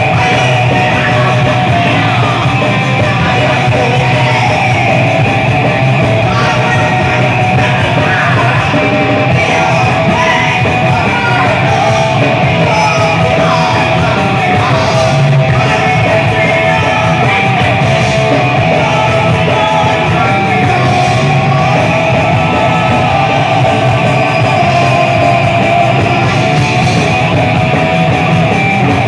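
Thrash metal band playing live and loud: electric guitars and a drum kit, with a woman singing and yelling over them.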